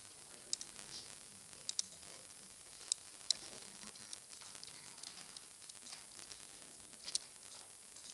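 Computer mouse clicks and a few keyboard key presses over a steady microphone hiss: a sharp click about half a second in, a close pair of clicks near two seconds, two more around three seconds, lighter ticks in the middle, and one last click just past seven seconds.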